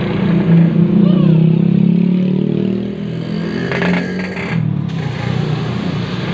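An engine running steadily, its pitch drifting slightly. About four seconds in comes a brief scraping as a spiral reamer is worked into the puncture in a tubeless tyre.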